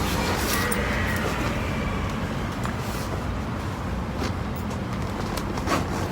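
Steady low rumble of outdoor road traffic, with a few light clicks over it.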